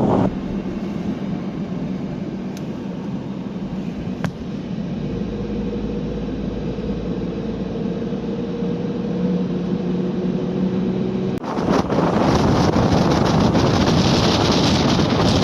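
Strong sea wind rushing over surf, with a steady engine drone through the middle part. About two-thirds of the way through it switches abruptly to loud wind buffeting the microphone over the breaking waves.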